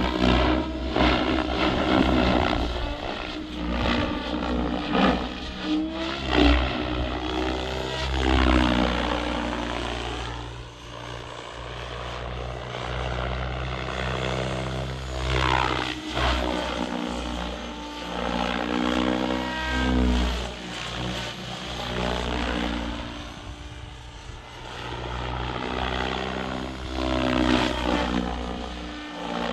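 Electric 700-size XLpower Specter V2 RC helicopter in 3D flight: the main rotor whooshes, with a motor and gear whine that rises and falls in pitch and loudness as it swoops and flips.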